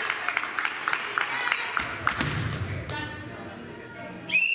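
Gym chatter with many short sharp sounds, then near the end a referee's whistle gives one long steady blast, the signal to serve.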